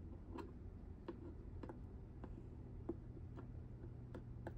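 Faint light clicks about every half second: square diamond painting drills being picked up and pressed onto the canvas with a multi-placer tool.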